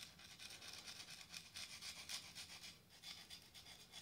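Faint scraping of a hand scraper's metal blade over the crown of a Peugeot 1.2 PureTech piston, in short irregular strokes, loosening the caked-on carbon deposits.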